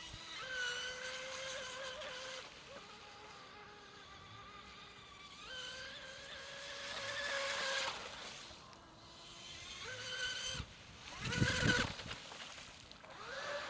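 Electric RC mono racing boat with a Tenshock EVO 1535 3350kv brushless motor running at speed: a high, steady motor whine that swells and fades several times as the boat passes, with a short burst of rushing noise about eleven seconds in.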